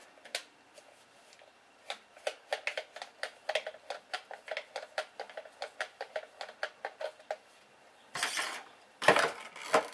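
A quick run of small sharp clicks, about five or six a second for several seconds, as a toy-drone transmitter is handled. A short rustle of handling follows near the end.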